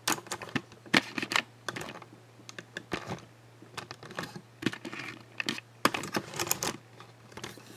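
Typing on the Dell Latitude E6510 laptop's keyboard: irregular runs of key clicks with short pauses between them.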